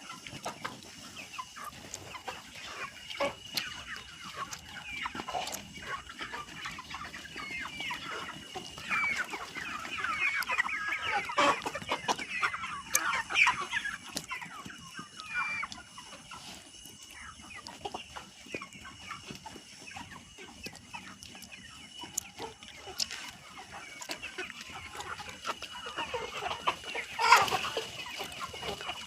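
A flock of chickens clucking and calling over one another, busiest about a third of the way in, with one loud call near the end.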